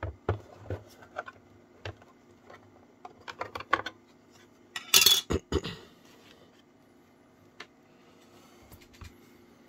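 Hard plastic clicks and knocks from a Unitra ZRK MK 121 cassette recorder's case being handled as its battery-compartment cover is unclipped and taken off, with the loudest clatter about five seconds in.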